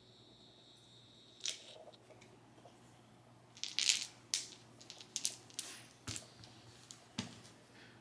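Dice packaging being handled and opened: crinkling and tearing with scattered light clicks and taps, busiest in the middle.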